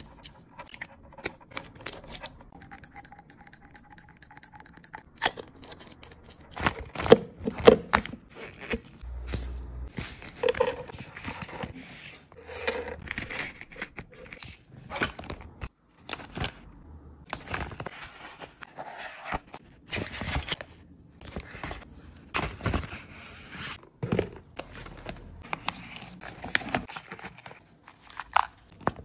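Hands handling small plastic toiletry items: clicks and taps of plastic bottle caps and cases, and crinkling and rustling of clear plastic pouches, in a string of short sharp sounds with brief pauses.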